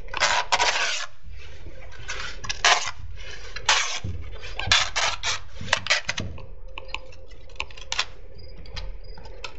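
Seam tape being pulled off its roll in a series of short, noisy pulls as it is run down a house-wrap joint.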